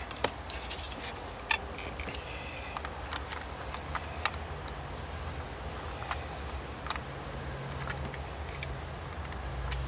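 Scattered light plastic clicks and taps from the detached front panel of a Yaesu FT-857D radio being handled and worked onto its plastic mounting bracket. A faint steady low hum comes in about halfway through.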